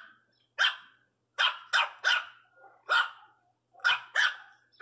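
Miniature pinscher puppies barking in short, high-pitched yaps, about seven in a row with some in quick pairs: a puppy barking because it wants the bone another is holding.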